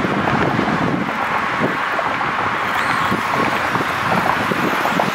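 Steady noise of passing road traffic, with wind on the microphone.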